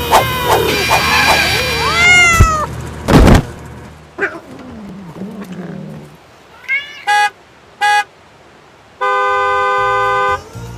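Cat meowing, with a loud thump, then a car horn: two short honks and one longer honk of about a second and a half.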